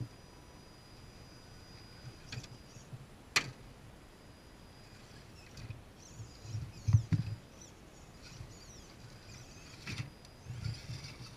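Vaterra Ascender RC rock crawler climbing rock: faint whine of its electric drivetrain with knocks, clicks and scrapes of the tyres and chassis on the rock, the loudest thumps about seven seconds in and again near the end.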